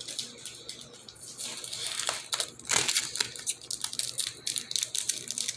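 Crinkling and crackling of a Pokémon card pack's wrapper being worked open by hand, picking up after about a second and a half.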